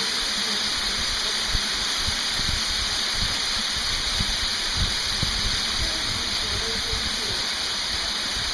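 Steady rush of a waterfall pouring down a narrow rock gorge, with spray falling close by. Scattered dull low knocks run through it.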